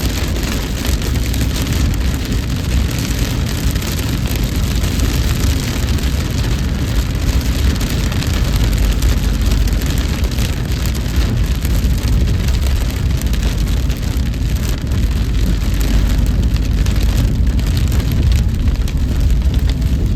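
Heavy rain on a moving car: a steady rain hiss over the low rumble of the car and its tyres on the wet road.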